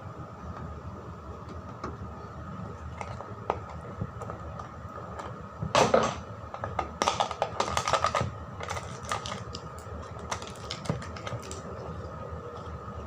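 Light clicks and clatters of kitchen utensils against cookware, irregular, with a louder clatter about six seconds in and a quick run of clicks just after, over a steady faint hum.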